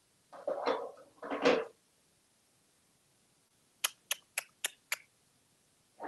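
African grey parrot making two short vocal sounds, then, about four seconds in, five sharp clicks in quick succession, about three a second.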